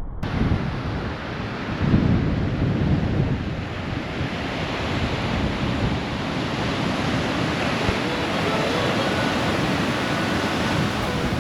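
Ocean surf washing into a beach cove, with wind rumbling on the microphone. It starts abruptly just after the beginning and stays steady.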